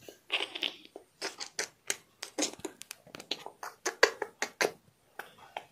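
Handling noise from a phone being moved about in the hand: a quick, irregular run of soft clicks, taps and scrapes, several a second.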